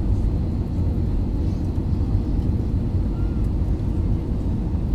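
Steady low rumble of an Airbus A320-200 airliner, heard from inside the cabin: engine and airflow noise with a faint steady hum on top.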